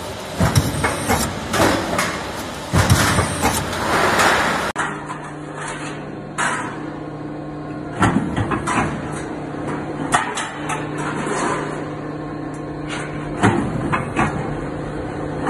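Metal roof-tile roll forming machine running: a steady machine hum with intermittent clunks and knocks as the sheet is formed.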